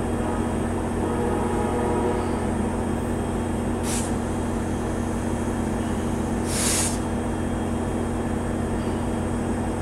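Amtrak Capitol Corridor passenger train pulling away, a steady low drone of its diesel locomotive and rolling stock. Two short hisses come about four seconds in and again about two and a half seconds later, the second longer.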